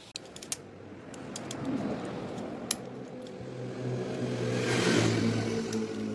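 A few light metallic clicks and clinks from handling the bicycle crank and chainring. Over them a passing motor engine swells up, loudest about five seconds in, then starts to fade.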